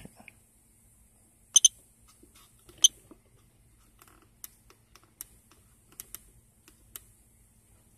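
Keypad buttons of a New Generation Star handheld diagnostic tester being pressed: a sharp double click about a second and a half in, another click near three seconds, then a run of fainter clicks.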